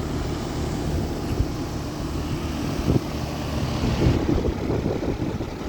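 Steady low mechanical hum of a running outdoor air-conditioning condensing unit, with wind buffeting the microphone in gusts around the middle.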